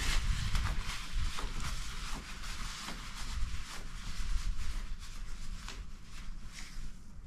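Nylon tent flysheet rustling and crinkling in irregular bursts as a door panel is opened and rolled back by hand, over a steady low rumble.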